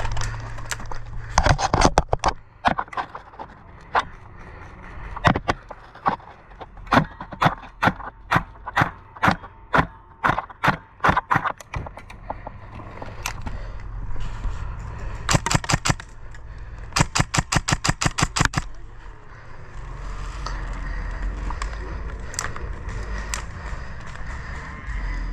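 Airsoft guns firing: irregular single shots for the first several seconds, then two short full-auto bursts of about eight shots a second past the middle. Low rumble, like wind or handling on the microphone, near the end.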